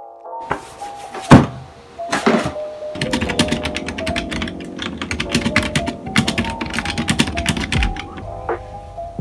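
Typing on a computer keyboard, a quick run of key clicks lasting about five seconds, over soft background music. Two louder thumps come just before the typing starts.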